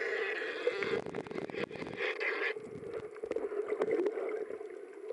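Underwater sound picked up through a submerged camera: muffled water movement and bubbling with scattered crackling clicks, over a steady low hum.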